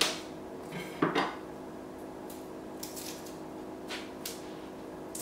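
Chef's knife laid flat on a garlic clove and struck with the palm against a wooden cutting board: two sharp knocks, one at the start and one about a second in. Then a few faint, short crackles as the papery skin is peeled off the crushed clove.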